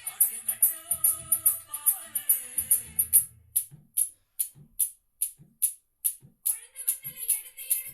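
Music playing. About three seconds in, everything but a steady shaker-like rhythm, about three strokes a second, drops out, with soft drum beats under it; a held melodic note comes back in near the end.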